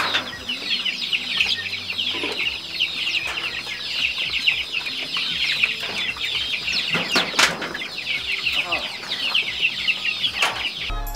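A large flock of young laying-hen pullets peeping constantly, a dense chorus of short, high, falling calls. A few sharp knocks break through, two close together just past the middle.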